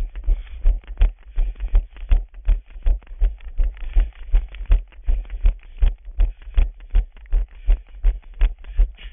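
A runner's footfalls jolting a body-worn camera at running pace, a steady rhythm of low thumps about three a second, over a faint hiss.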